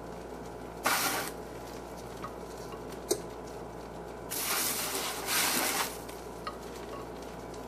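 Pieces of baked crumble topping scraped and slid off a metal sheet pan into a casserole dish. There is a short rustling scrape about a second in, a single tick near three seconds, then a longer scraping rattle from about four and a half to six seconds, over a faint steady hum.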